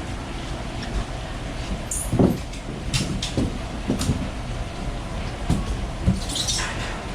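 Steady low background hum with scattered knocks and clicks, and a short hiss near the end.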